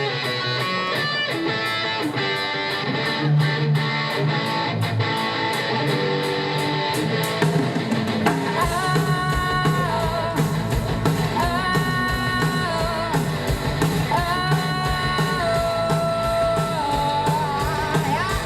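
Rock band playing live: an instrumental passage led by guitar, with bass and drums coming in about halfway through under a held melody line.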